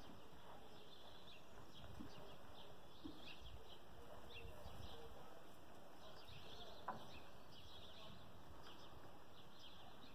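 Quiet outdoor ambience: small birds chirping on and off, with the faint, soft footfalls of a horse moving on sand.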